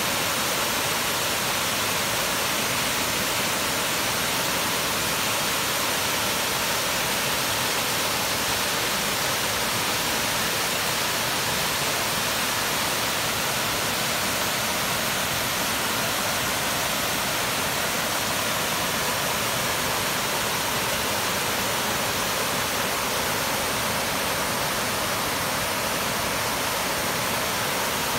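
Waterfall cascading down tiers of rock ledges: a steady rush of falling water.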